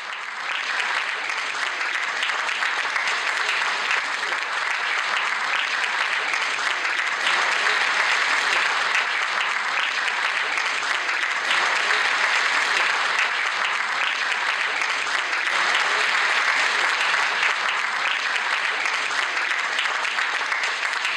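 Audience applauding steadily, a dense even clapping from a large crowd.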